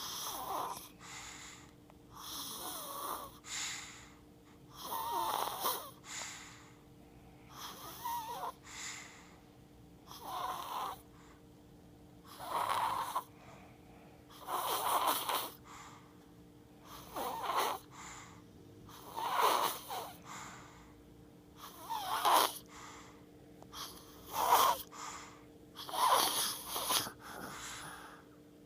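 Snoring in a steady rhythm, one rough snore about every two seconds.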